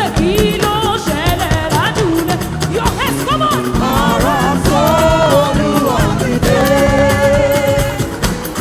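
Live gospel worship music: voices singing a melody, at times in harmony, over a band with percussion keeping a steady beat.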